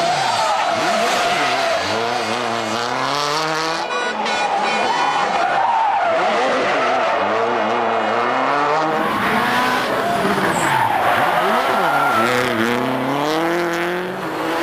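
Subaru Impreza WRC rally car's turbocharged flat-four engine revving hard through the gears, its pitch climbing and then dropping at each shift, over several passes.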